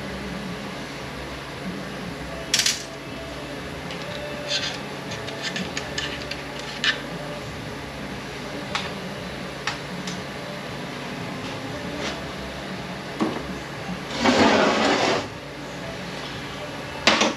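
Metal transmission parts being handled on a workbench: scattered clicks and light clinks of metal on metal, with a denser, noisier burst lasting about a second near the end, over a steady background hum.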